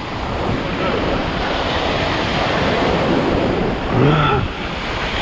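Waves breaking and surf washing up over the sand, with wind on the microphone. A brief low voice sound comes about four seconds in.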